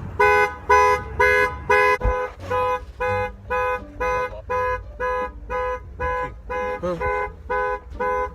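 Car alarm sounding through the car's horn: a two-note horn honking in a steady rhythm, about two blasts a second, loudest over the first two seconds.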